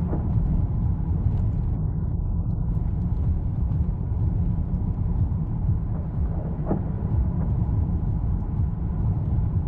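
Steady, deep rumble of strong wind buffeting the microphone.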